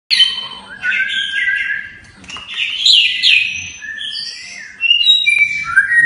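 White-rumped shama singing: a run of varied, loud whistled phrases, some gliding up or down in pitch, with short pauses between them.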